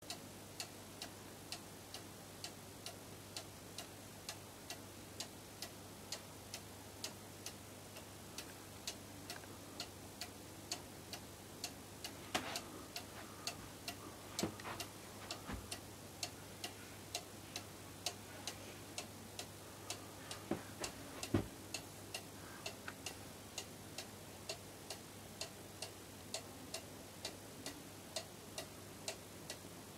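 Cuckoo clock's pendulum movement ticking steadily, about two ticks a second. A few duller knocks come in the middle, the loudest a little past two-thirds of the way through.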